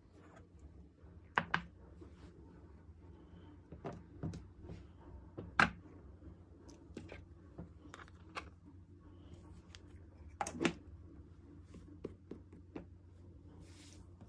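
Sharp clicks and knocks of a round metal tin of erasers being handled, its lid taken off and put back on, over a low steady hum; the loudest knock comes about five and a half seconds in, and a close pair comes near ten and a half seconds.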